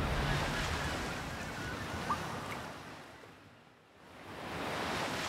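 Ocean surf sound effect: a wash of noise that ebbs away almost to nothing about four seconds in, then swells back, with a few faint short blips over it.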